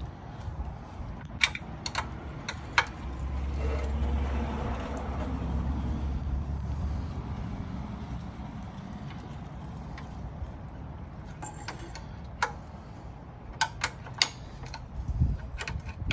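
Sharp metal taps in two scattered groups: a hammer tapping on the edger's blade-adjustment pin. A low rumble runs for a few seconds in the middle.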